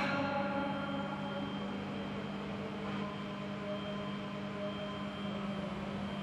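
Steady background hum of distant city traffic, with a faint low steady tone under it.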